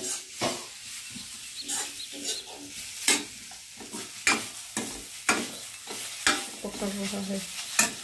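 Metal ladle scraping and clinking against a metal kadhai as grated carrots frying in ghee are stirred, about one stroke a second, over a steady sizzle.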